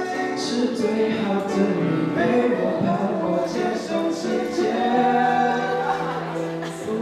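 Two male voices singing a song into microphones over an electric keyboard accompaniment, amplified through a PA in a hall.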